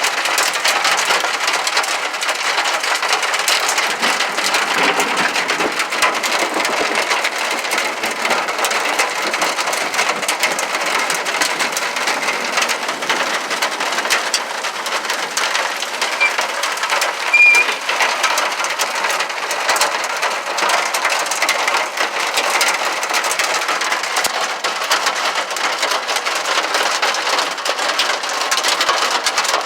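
Heavy rain mixed with hailstones pelting down: a dense, steady hiss of rain crowded with sharp ticks of hail strikes.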